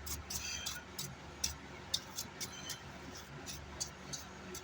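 Scattered light clicks and taps, irregular and a few per second, from handling the opened car amplifier's circuit board on the bench, over a faint steady low hum.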